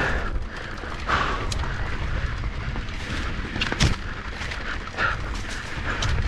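Mountain bike descending a dirt trail: steady wind rumble on the microphone and tyre noise, broken by several sharp knocks and rattles as the bike hits bumps, the loudest a little before four seconds in.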